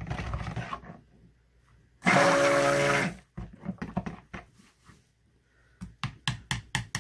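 Stick blender pulsed in soap batter: a short burst at the start, then a louder run of about a second with a steady motor whine, bringing the batter to a light trace. Near the end comes a quick series of sharp clicks.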